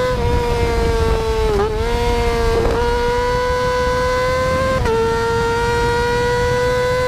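2008 Yamaha R6's 600 cc inline-four engine running at very high revs under load, heard on board. Its high, steady wail climbs slowly and drops abruptly in pitch a few times, then climbs again, as the quickshifter shifts up a gear without the clutch.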